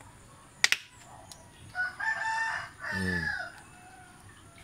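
A rooster crowing once, a call of about a second and a half that starts about two seconds in and falls away at its end. A sharp double click comes shortly before it.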